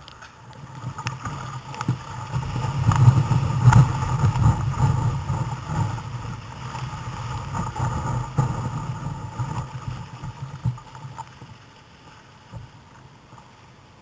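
Breaking surf and whitewater rushing and splashing around a kayak riding through the waves. The rush swells a couple of seconds in, eases, and dies down near the end, with a few sharp knocks along the way.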